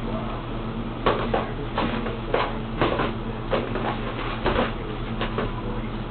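Kittens scrabbling at and inside an empty cardboard box: a run of irregular scratchy scrapes and knocks starting about a second in, over a steady low hum.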